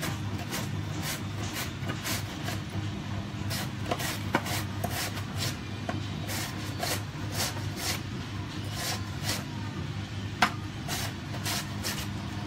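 A cucumber being julienned on a mandoline slicer: quick back-and-forth strokes over the julienne blade, about three a second, each a short scraping swish, with one sharper click about ten seconds in.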